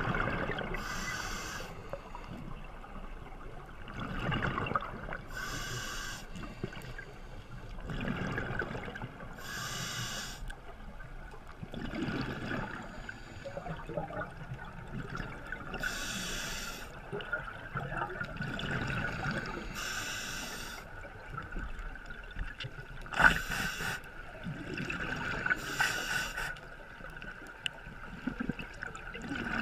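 Scuba diver breathing through a regulator underwater: a slow inhale, then a bubbling exhale about every four seconds.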